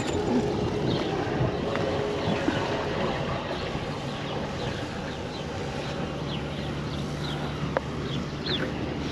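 The Broom 41's twin inboard engines running at low idle while the boat is manoeuvred into its berth, a steady low hum that firms up about halfway through. Small birds chirp briefly and often over it, and there is one sharp click near the end.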